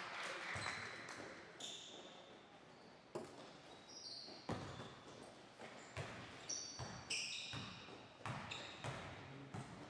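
Basketball bouncing on a hardwood gym floor as a player dribbles, a sharp knock about every second or so, with brief high sneaker squeaks in between.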